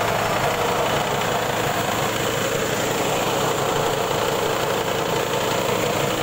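Carlton mini one-pass rice huller running steadily under load, milling paddy straight into white rice, with a constant mechanical din.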